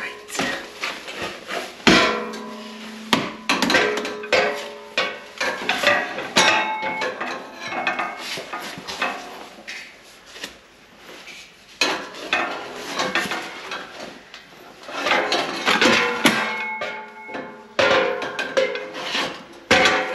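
Dinan stainless steel muffler and tailpipes clanking as they are handled and lifted into place: irregular metal knocks, each leaving a short ringing tone, with a quieter stretch about halfway through.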